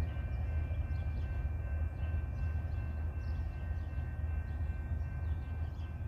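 Distant freight train rumbling as it moves off, a steady low rumble with a faint steady high-pitched whine over it. Birds chirp lightly now and then.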